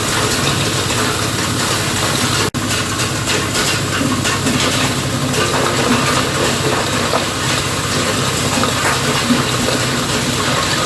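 Soil grinding machine for hard soil and hardpan running, a loud steady mechanical din with a hissing, gritty top. It breaks off for an instant about two and a half seconds in.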